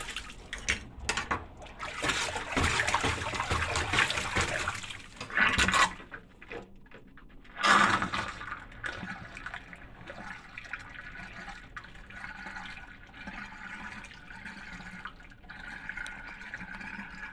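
A sink full of water draining fast down a freshly cleared kitchen drain: uneven splashing for the first several seconds, a loud splash just before eight seconds in, then a steady rushing as the water swirls down the drain in a whirlpool, a sign that the drain now flows freely.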